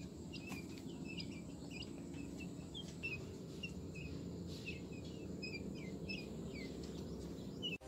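Quail chick peeping: short, faint, high chirps repeated about three times a second over a low steady background hum.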